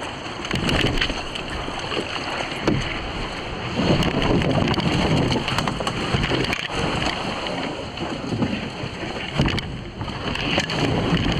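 A canoe being dragged by hand over grass, rocks and brush: the hull scrapes and knocks unevenly, with frequent sharp knocks and branches brushing past.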